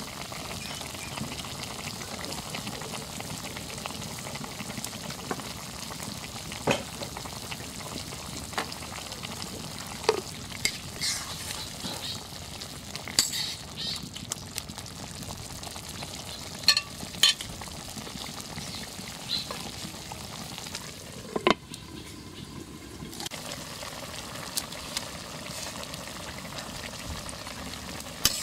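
A vegetable curry sizzling and bubbling in a metal karahi over a wood fire. A metal spatula stirs and scrapes against the pan with scattered sharp clinks.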